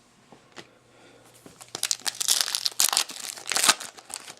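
Foil trading-card pack wrapper being torn open and crinkled, a quick run of crackling from about a second and a half in.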